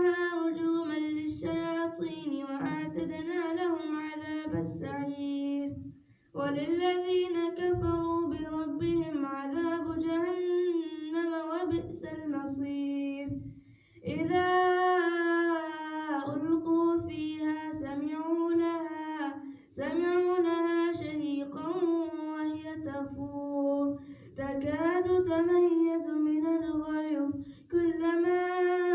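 A man's solo voice reciting the Quran aloud in melodic chant as imam of the dawn prayer. He recites in long, ornamented phrases on a steady reciting pitch, with short breaths between them every few seconds.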